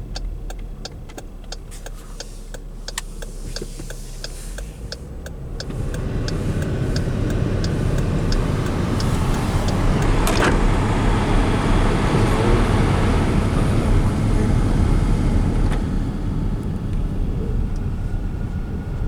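Cabin noise of a 2016 Dodge Durango on the road: a regular ticking for the first few seconds, then the engine and tyre noise swell as the SUV picks up speed and stays steady.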